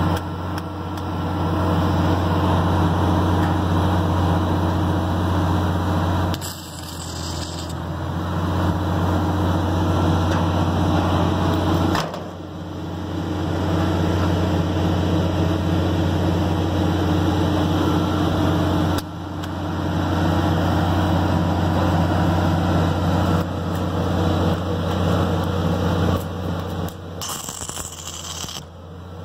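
Drawn-arc stud welding of shear studs through steel deck: short hissing arc bursts, once a few seconds in and again near the end, over a steady machine drone from the welding power equipment.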